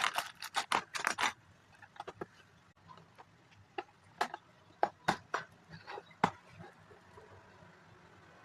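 Plastic Lego pieces clicking and clattering as they are handled: a quick flurry of clicks at the start, then single clicks every half second or so until about six seconds in.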